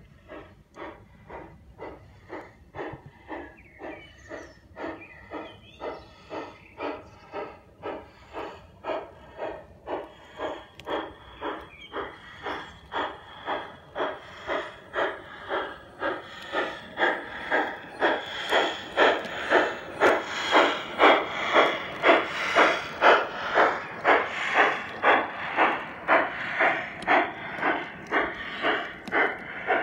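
LGB Uintah model steam locomotive chuffing steadily at about two chuffs a second, growing louder as it approaches and staying loud as the train passes close by.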